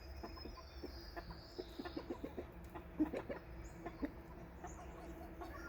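Chickens clucking softly, with a few thin, high chirps from small birds.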